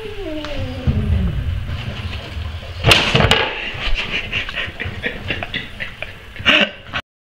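A domestic cat's drawn-out yowl, falling steadily in pitch and fading out after about a second, as the cat faces a cat-shaped walking foil balloon. A sudden loud burst of noise follows, then scattered light crackles, another short burst near the end, and an abrupt cut-off.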